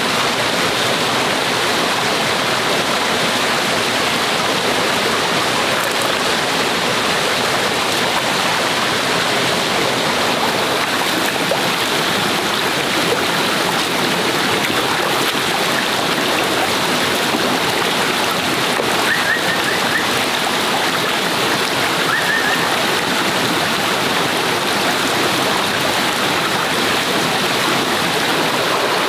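Steady rush of a flowing stream, running on without a break, with two brief high chirps about two-thirds of the way through.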